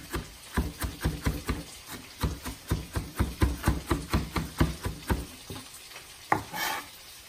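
A kitchen knife chopping onion and garlic on a plastic cutting board: a rapid, even run of knocks, about four a second, that thins out near the end.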